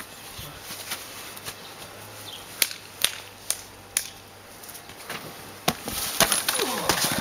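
Sharp scattered knocks of bodies and feet on the makeshift ring, then a heavier impact and clatter as a wrestler is slammed down onto a mattress-covered table near the end.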